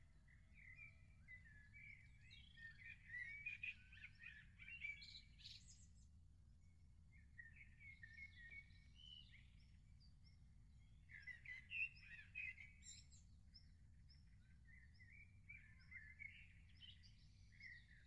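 Songbirds singing: four bursts of rapid warbling, each one to five seconds long with short pauses between, and a thin high note repeated steadily through the second half. A faint steady low rumble runs underneath.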